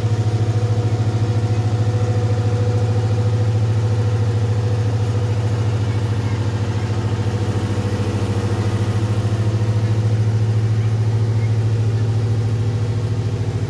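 Small tandem-drum asphalt road roller's engine running steadily as the roller drives along the road, a constant low drone.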